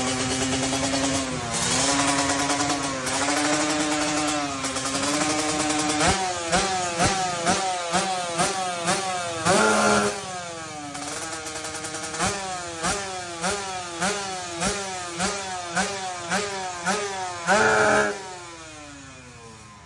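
Drag-racing motorcycle engine being free-revved on the stand. It idles unevenly at first, then takes quick throttle blips about twice a second, with two longer high-rev bursts, and dies away near the end.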